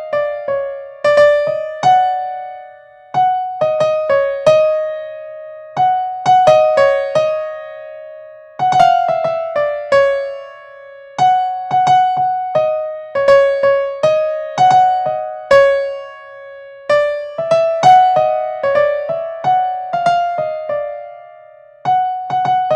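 Background music: a melody of single struck keyboard notes, each ringing and fading, played in short phrases with brief pauses between them.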